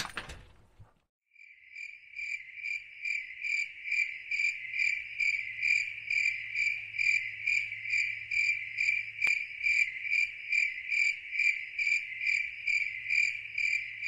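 Insect chirping, cricket-like: one steady, even pulsed call, about three chirps a second, that fades in just over a second in.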